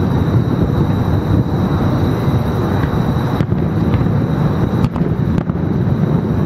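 Aerial fireworks shells bursting, heard as a few faint bangs about three and a half, five and five and a half seconds in, over a steady loud low rumble.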